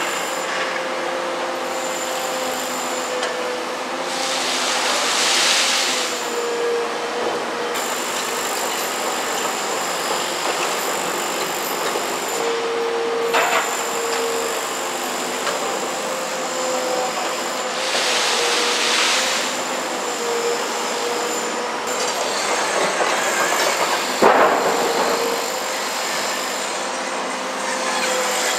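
Komatsu PC210LC hydraulic excavator's diesel engine and hydraulics running under load, a steady whine that wavers in pitch. Two spells of gravel rattling and scraping against the bucket, and two sharp metallic clanks, about halfway through and near the end.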